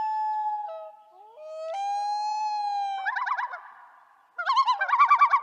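Common loon calling. Two long wailing calls come first, the second stepping up in pitch as it begins. From about three seconds in comes the loon's rapidly wavering tremolo call, given again after a short pause near the end.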